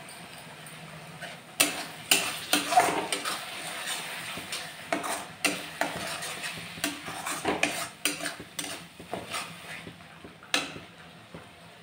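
Steel spatula scraping and clinking against an iron kadhai as tomato purée is stirred into fried masala paste, over a faint sizzle. The uneven strokes start about a second and a half in and stop near the end.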